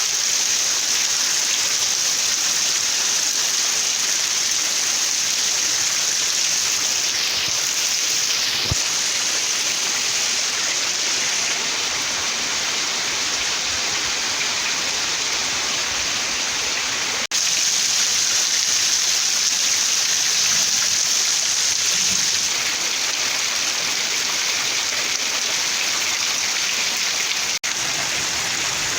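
Rain falling steadily, an even hiss of drops on surfaces. It cuts out for an instant twice, once past the middle and once near the end.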